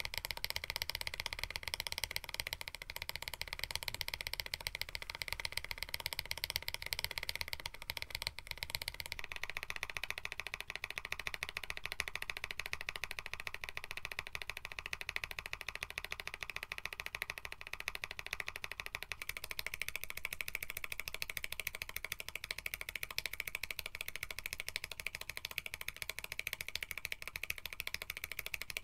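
Fast, continuous typing on a KBD67 Lite mechanical keyboard with an FR4 plate and lubed switches: a dense, unbroken clatter of keystrokes.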